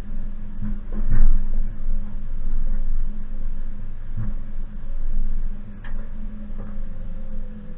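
Suzuki Jimny's engine running steadily at low revs while driving an off-road track, with several sharp knocks and rattles from the vehicle over rough ground, about a second in, around four seconds and around six seconds.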